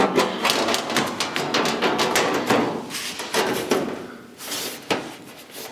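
Thin sheet-metal floor pan being pressed and worked into place against the rocker by hand: a string of light knocks and clatter from the metal.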